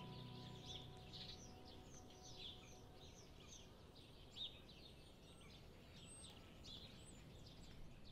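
Faint birdsong: several small birds chirping and twittering in quick, repeated calls.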